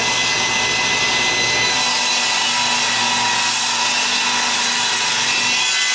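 Table saw ripping a board lengthwise, blade cutting steadily through the wood, with a low steady tone joining in about two seconds in. Released stresses in the board are pinching the kerf closed behind the blade, and the splitter holds it off the blade.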